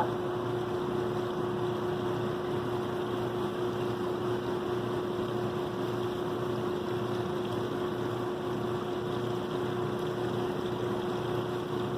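Electric motor of the cleaning rig (pressure washer or wet-vac) running steadily: a constant hum with an even whine over a rushing noise.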